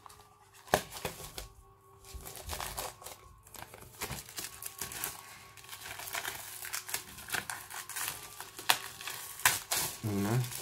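Plastic shrink-wrap being torn open and peeled off a hardback book, crinkling and crackling irregularly.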